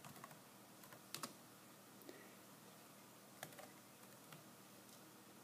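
Faint, scattered keystrokes on a laptop keyboard: a handful of single clicks about a second apart over quiet room tone.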